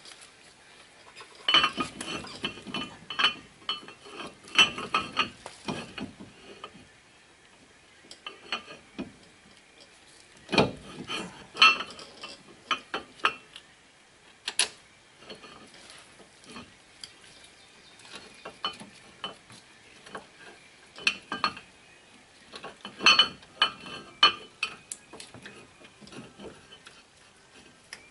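Metal brake hardware clinking and scraping as the caliper bracket and its bolts are handled and fitted at a car's front wheel hub. The clicks come in scattered clusters with quiet gaps between them.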